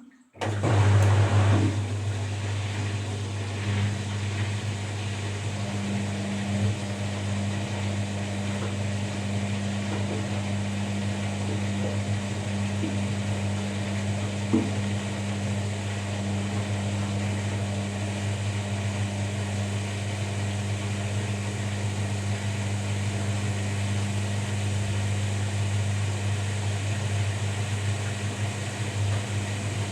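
Washing machine starting up about half a second in and then running with a steady, even hum and whirr, with a single small click about halfway through.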